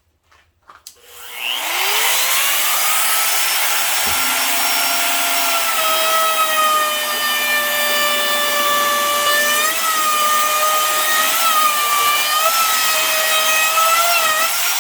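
Trim router with a chamfer bit starting up about a second in, its pitch rising quickly, then running with a high steady whine as it cuts a 45-degree chamfer along a wooden edge. Its pitch dips briefly several times near the end as the bit takes load in the wood, and it winds down at the very end.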